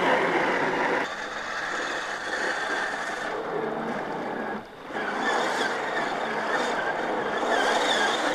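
Scale RC crawler trucks' brushed 540 electric motors and geared drivetrains whining as they drive off-road, the whine wavering with throttle. The sound drops back about a second in and dips briefly near the middle before picking up again.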